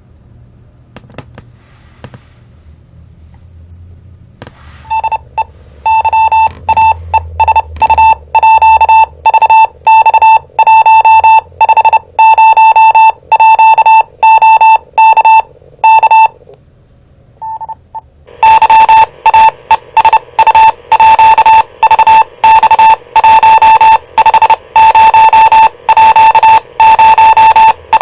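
Handheld VHF radio's speaker sounding a loud, distorted beeping tone that pulses on and off, starting about five seconds in, pausing briefly past the middle, then resuming with faster pulses.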